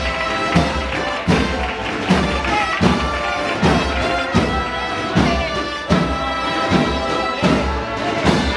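An agrupación musical, a Spanish processional band of brass and drums, playing a slow processional march: held brass melody lines with sliding notes over a steady bass-drum beat about every three-quarters of a second.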